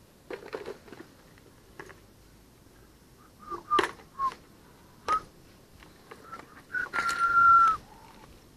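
A clear plastic tackle box is pulled from a backpack and opened: a rustle, then sharp plastic clicks as its latches are snapped open, with short squeaks. Near the end comes a longer, louder squeaky scrape as the lid is lifted.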